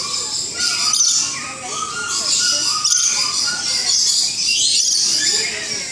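A flock of lories calling together: a dense, steady mix of many short, shrill, overlapping calls.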